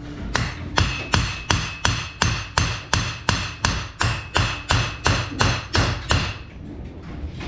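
Rapid hammer blows on metal, about seventeen at a steady pace of nearly three a second, each with a metallic ring, stopping about six seconds in: hammering on the seized, rusted parts of an AMF 82-30 vertical ball lift to drive them loose.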